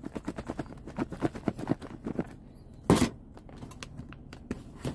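Salad shaken inside a lidded plastic food container: a quick run of soft knocks and rattles for about two seconds, then a single louder thump about three seconds in.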